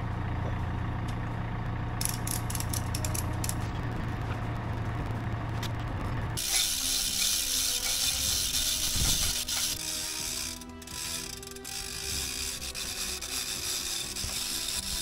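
Telehandler engine idling with a steady low hum, and a quick run of mechanical clicks about two seconds in. About six seconds in the sound changes abruptly to a steady hiss, with the engine fainter underneath.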